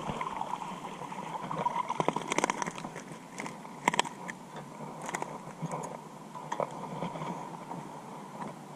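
A hooked bass being reeled in and landed on a chatterbait: irregular clicks, taps and light splashes from the reel, line and fish, with a cluster of sharp clicks about two seconds in and single sharp taps around four and five seconds.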